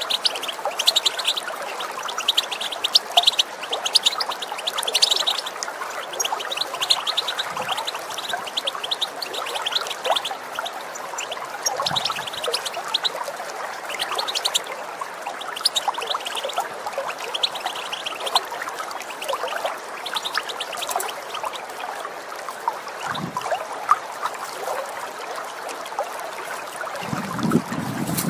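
European goldfinch calls, quick runs of short twittering chirps coming in bursts over the steady trickle of running water. A louder, deeper rushing noise comes in near the end.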